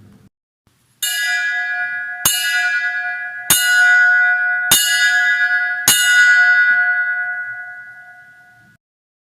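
A bell struck five times, about one strike every 1.2 seconds. Each strike rings on in clear steady tones, and the ringing fades away after the last one.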